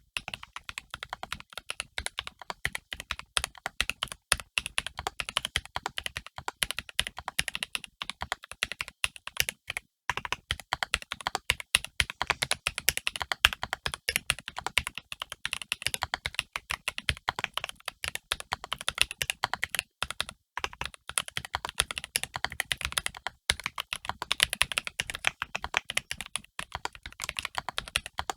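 Mechanical keyboard being typed on steadily: an Ikki68 Aurora with an FR4 plate, lubed tactile frankenswitches (Boba U4T stems in T1 housings) and GMK keycaps, giving a continuous stream of keystroke clacks.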